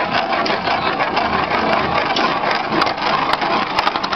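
Spinning tops whirring and rattling as their metal tips run on the surface, with a few sharp clicks near the end as they knock together.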